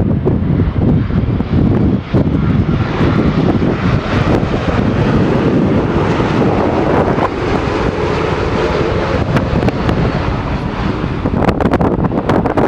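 Boeing 787 twin-jet airliner landing, its engine noise loud and steady.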